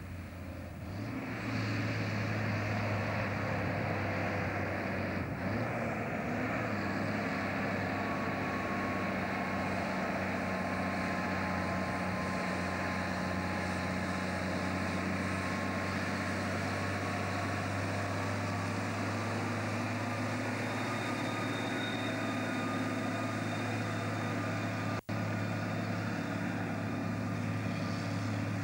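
Diesel engine of a logging truck and trailer running steadily as it approaches and passes, its note holding a constant pitch. The sound fades in over the first couple of seconds, and the audio cuts out for an instant near the end.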